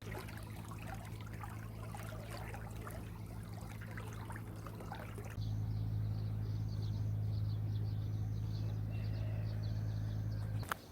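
Water running and trickling, over a steady low hum. About halfway through, the hum and the overall level jump louder, then everything stops abruptly just before the end.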